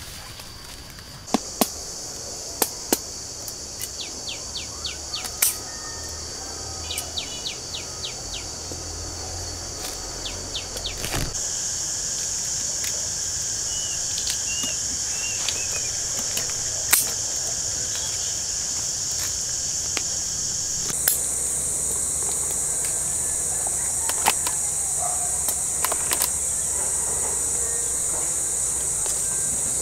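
Steady high-pitched chorus of insects droning, changing abruptly in pitch and loudness twice, with scattered sharp clicks and a few short chirps over it.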